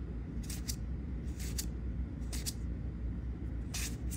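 Magic: The Gathering trading cards sliding against each other as they are flipped from the front to the back of a hand-held stack, making a short swish about once a second, four times, over a steady low hum.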